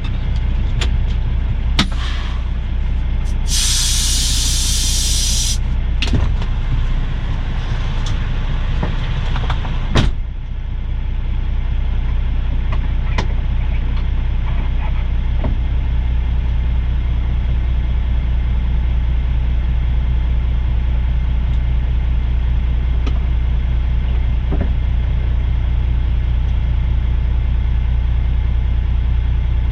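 Semi truck's diesel engine idling with a steady low rumble. About four seconds in, a sharp two-second hiss of air from the truck's air brakes. A few clunks follow, with a louder knock around ten seconds in.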